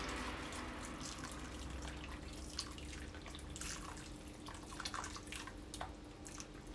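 Hot water poured in a thin stream from an electric kettle into a stainless steel bowl of sea bream pieces, splashing and trickling with scattered droplet ticks and slowly getting quieter. The fish is being scalded to remove its odour.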